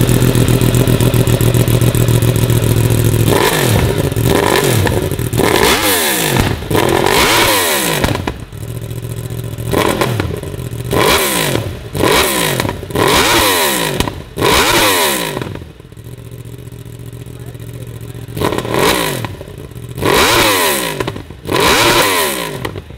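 Litre-class inline-four sport-bike engine idling, then blipped about a dozen times in quick rising-and-falling revs, with a short stretch back at idle about two-thirds of the way through. The revs are a backfire test, meant to draw pops from the exhaust.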